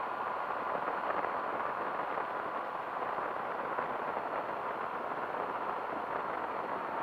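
Airwolf powered-parachute trike's engine and propeller running steadily in flight, a continuous rushing drone with wind noise.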